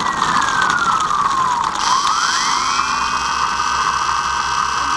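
Twin electric motors and propellers on an RC airplane taxiing on the ground. Their whine winds down over the first two seconds, then rises quickly as the throttle comes up and holds steady, with two close tones from the two motors.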